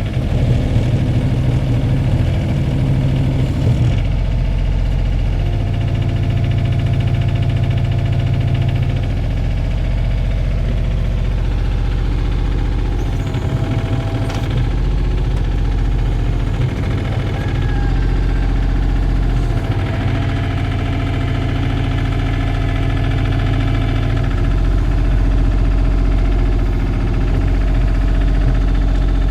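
Komatsu PC28UU mini excavator's small three-cylinder diesel engine running steadily, its note shifting down and up several times through the stretch.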